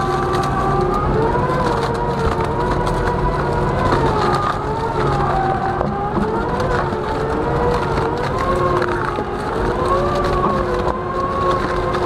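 Heavy log shredder working a log: its toothed rotor grinds and splits the wood with scattered sharp cracks. Over a steady low hum, the machine's drive whines and wavers up and down in pitch as it loads and eases under the log.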